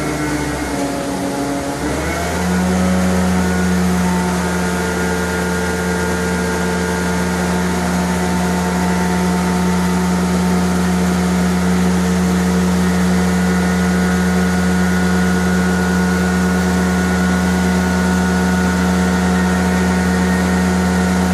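A steady mechanical hum at a constant pitch, which gets louder and settles about two seconds in, then holds unchanged.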